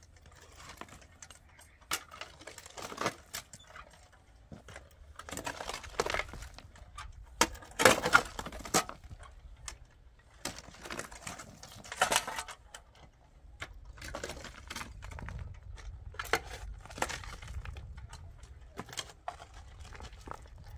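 Long-handled hoes chopping into and scraping through stony soil, with loose stones clinking and knocking together in irregular strikes, the loudest about eight seconds in.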